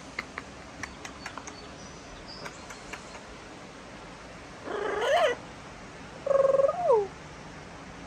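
Two short macaw calls: one about five seconds in, and a louder one a second later that is held on one pitch and then drops. A few faint clicks come earlier.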